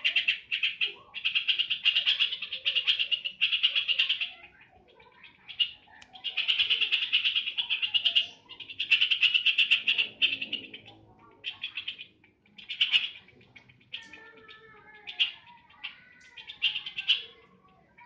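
Caged yellow-vented bulbul (trucukan) singing in rapid chattering trills about a second long, with short pauses between them. After about eleven seconds the phrases turn shorter and more spaced out.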